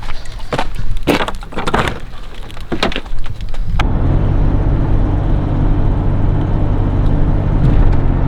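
Scattered knocks and rustles for the first few seconds, cut off abruptly. Then a vehicle engine idling, a steady low hum.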